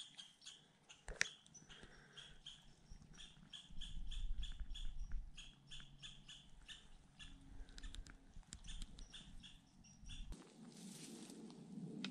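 A small animal chirping faintly and steadily, short high chirps about three a second, with a sharp click about a second in and low wind rumble on the microphone through the middle. Soft rustling near the end.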